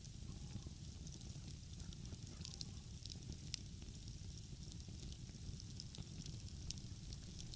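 Open wood fire crackling, with frequent small sharp pops, over a steady low rumble.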